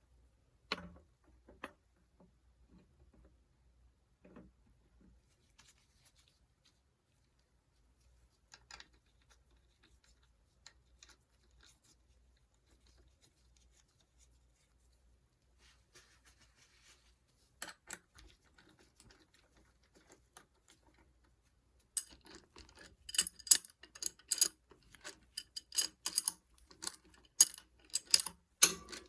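Metal tools and small bicycle parts clinking and clicking during hand work on an adjustable bottom bracket: a few scattered taps at first, then a busy run of quick metallic clicks and clinks from about two-thirds of the way in.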